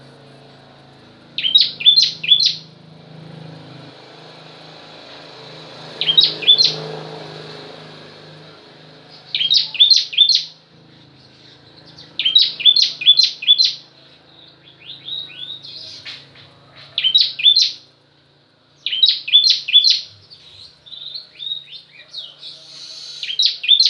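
Ciblek (bar-winged prinia) singing: loud clusters of three to five quick, sharp, high chirps, repeated every two to three seconds.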